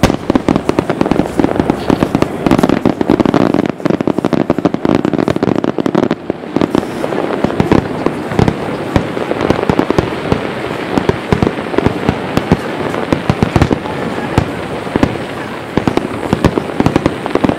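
A dense fireworks barrage: shells bursting in the air and at the sea surface in rapid overlapping booms and crackles, with no pause between them.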